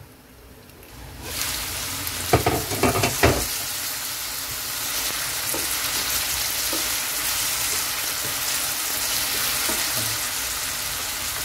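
Shoestring potatoes frying in hot oil in a non-stick pan, muffled under a glass lid for about the first second, then a steady open sizzle. A few knocks of a wooden spatula against the pan come about two to three seconds in as the potatoes are stirred.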